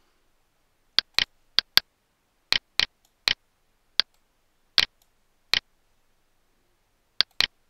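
Computer mouse button clicks: about a dozen short, sharp clicks at irregular intervals, several in quick pairs, as the mouse is used to move a patient in an X-ray simulator.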